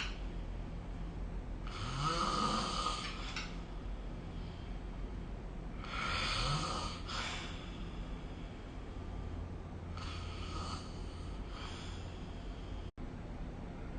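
A person snoring in sleep, one snoring breath about every four seconds, with a fainter one near the end.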